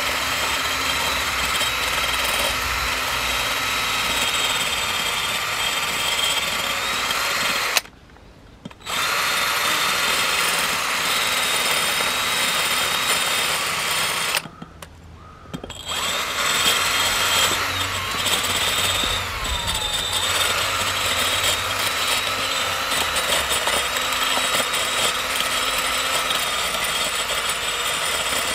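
Cordless drill running steadily, its bit boring calcium deposits out of the hose spout of a car's coolant outlet housing, with a steady motor whine. The drill stops twice for about a second, about a third and about half of the way through.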